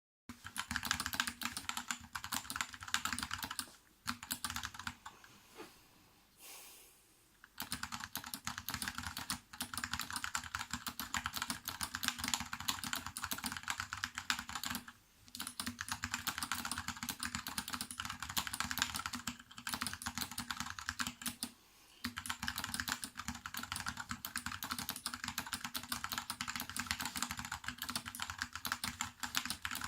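Fast typing on an Input Club K-Type mechanical keyboard with Kailh BOX switches, clipped and lubed stabilisers and butyl rubber and plaster damping inside the case: a steady stream of key clicks and clacks. It breaks off for a few short pauses, the longest from about four to seven seconds in.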